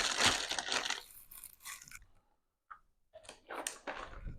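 Crinkly plastic snack packaging crackling and rustling as it is handled and packed into a box. The crackling is busiest in the first two seconds, then there is a short pause and a few more crinkles near the end.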